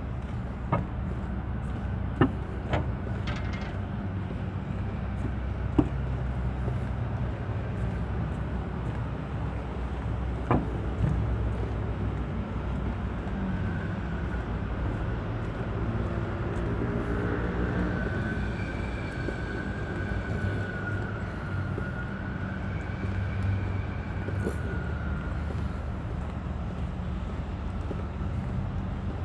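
Steady low rumble of vehicle traffic, with a few sharp knocks in the first ten seconds or so. From about halfway a high whine with a slightly wavering pitch comes in, then fades out before the end.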